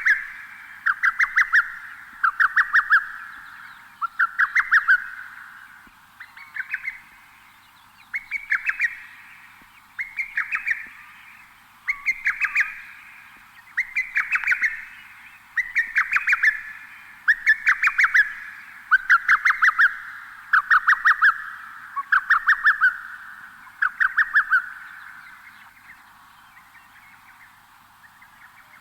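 A bird calling over and over: each call is a short, rapid stutter of pulsed notes, repeated about every two seconds, and each trails off in an echo. The calling stops a few seconds before the end.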